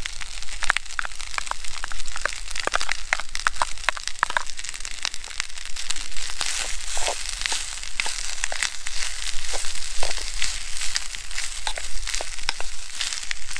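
Rice, chorizo and prawns sizzling in a metal mess tin over a small wood-burning stove, with dense crackling throughout, and a metal spoon scraping and clicking against the tin as the food is stirred.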